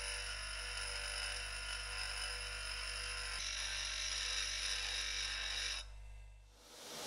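Bench grinder running with the steel hatchet head pressed against the wheel: a steady motor hum under an even grinding hiss. It cuts off about six seconds in, and a steady rushing noise fades in just before the end.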